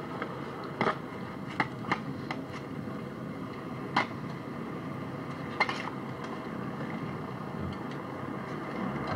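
Steady road and engine noise inside a moving car's cabin, with about five sharp, irregular clicks or knocks in the first six seconds.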